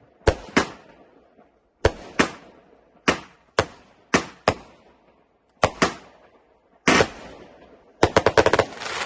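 Hallmark Fireworks' Bonfire Bash firework going off in a run of sharp bangs, mostly in pairs about every second or second and a half. Near the end comes a rapid flurry of cracks that runs into about a second of hiss.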